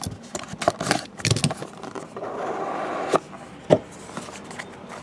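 Cardboard trading-card box being handled and opened: a run of short scrapes and taps, then about a second of steady rubbing scrape of cardboard against cardboard, followed by two sharp knocks.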